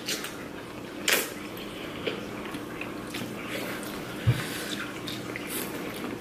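Close-up eating sounds: wet chewing and mouth sounds with a few sharp clicks, the loudest about a second in, and a low thump near the end.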